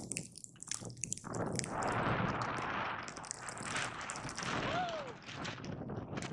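Skis hissing and scraping over snow on a downhill run, with crackling clicks in the first second.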